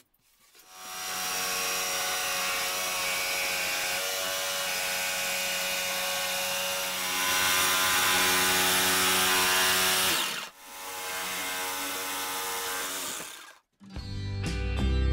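Cordless jigsaw cutting a sink opening through a wooden countertop, its motor running steadily, pausing briefly about ten seconds in, then cutting again for a few seconds before stopping. Background music comes in near the end.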